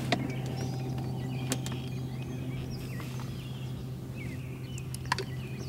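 Short bird chirps and calls over a steady low hum, with a few sharp clicks, the loudest about a second and a half in and about five seconds in.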